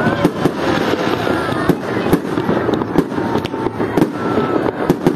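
Fireworks display: aerial shells bursting overhead in an irregular run of loud bangs, roughly two a second.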